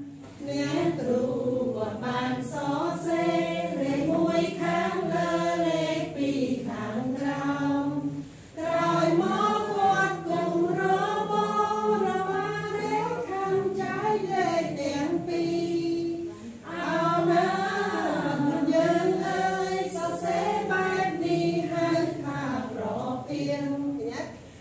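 A group of voices singing together in unison, a simple tune in long phrases with short pauses for breath about eight and sixteen seconds in.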